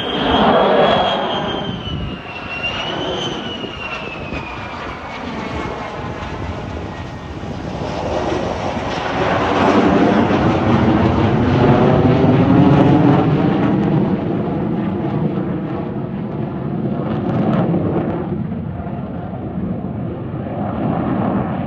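F-35 fighter's single Pratt & Whitney F135 turbofan during a landing pass: a loud engine howl with a high whine that falls in pitch over the first few seconds. About eight seconds in, the roar swells again, is loudest around ten to thirteen seconds in, then slowly fades.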